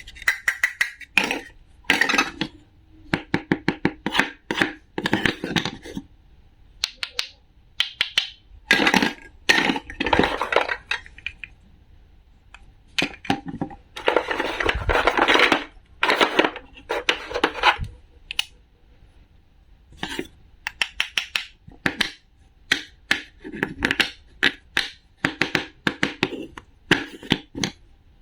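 Knife chopping food on a cutting board: quick runs of crisp cuts and crunches, broken by short pauses.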